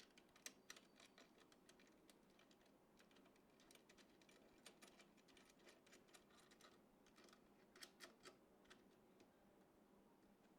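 Faint, irregular small clicks and taps of computer parts and connectors being handled during PC assembly, over a faint steady hum.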